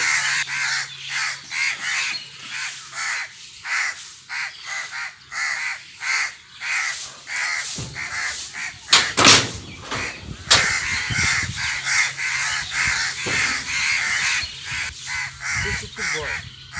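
Several crows cawing over one another, calls coming several a second without a break. A few sharp, loud knocks stand out about halfway through.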